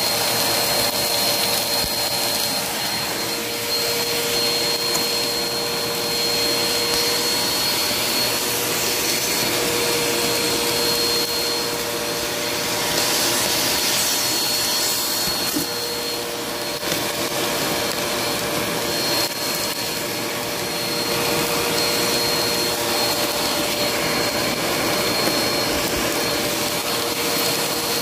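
Vacuum cleaner running steadily, its motor giving a constant high whine over the rush of air, as it is pushed across a hard floor.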